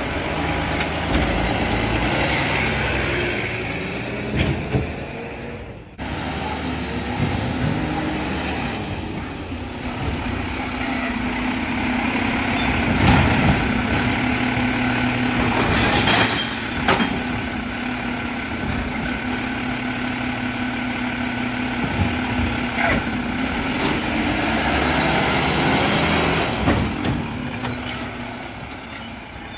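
Mack LEU garbage truck with a Labrie Helping Hand automated side-loader arm working: a steady hydraulic and engine whine while the arm lifts and dumps recycling carts. Sharp hisses and bangs come a few times as the air brakes release and the carts empty.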